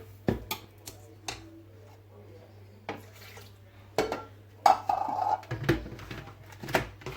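A metal spoon clinks and knocks against kitchen dishes as sugar is spooned into the drink: several separate clinks, the loudest about four and a half seconds in with a short ring.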